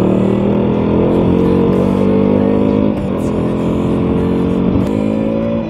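KTM RC 390's single-cylinder engine accelerating hard, its pitch climbing, dropping at a gear change about halfway, then climbing again.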